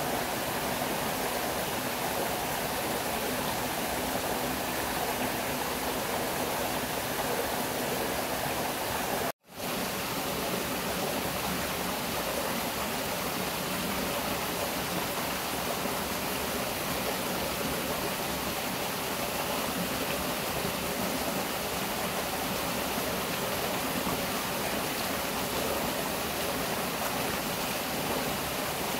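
Steady rush of flowing stream water, cutting out for a moment about nine seconds in.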